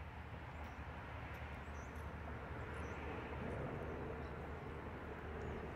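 Outdoor ambience: a steady low rumble, with a few faint, short high chirps from small birds scattered through it.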